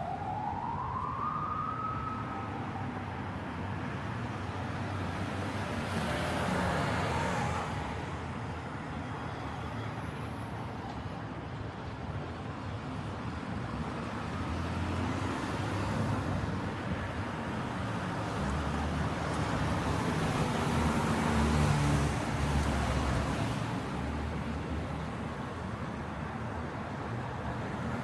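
Light road traffic: cars passing one after another over a steady low rumble, with two louder passes swelling up and fading, about seven and twenty-one seconds in. At the start a siren glides upward in pitch and breaks off about two seconds in.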